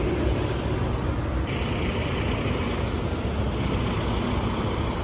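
Steady road traffic noise, with cars driving past on a street.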